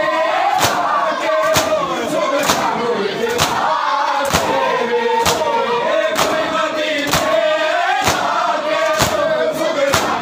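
A crowd of men chanting a Shia mourning lament (noha) in unison, keeping time with open-hand strikes on their bare chests (matam), roughly one loud slap a second.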